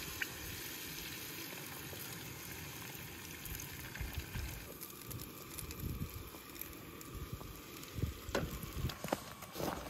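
Eggs frying in a hot pan on a camp stove, a steady sizzle. In the last couple of seconds a spatula knocks and scrapes in the pan a few times as the eggs are stirred.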